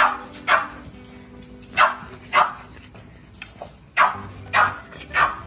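French bulldogs barking during rough play: seven short, sharp barks, mostly in pairs about half a second apart.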